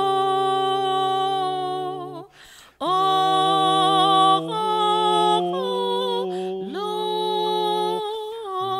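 A small a cappella church choir or group of cantors sings a slow liturgical response in harmony. The chords are long and held, with a short breath pause about two and a half seconds in and a change of chord near the end. This is the sung reply to the call to bow heads to the Lord.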